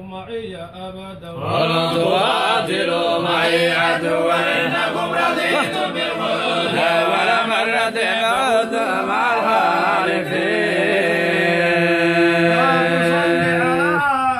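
Men's voices chanting in a slow melodic style, several voices at once with long held notes, swelling much louder about a second and a half in.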